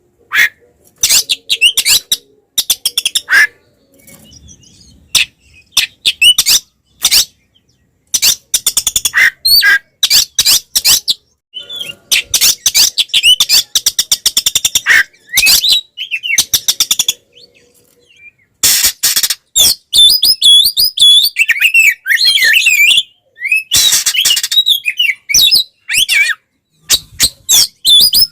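Oriental magpie-robin (kacer) singing loudly in its aggressive fighting song: bursts of rapid, harsh chattering notes broken by short pauses. In the second half it turns to denser song with swooping whistled notes.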